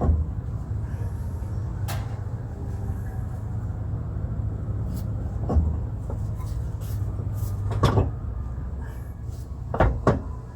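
Metal knocks and clunks, about six spread over ten seconds with two close together near the end, as a front differential is worked against the subframe and axle of a GM SUV. A steady low hum runs underneath.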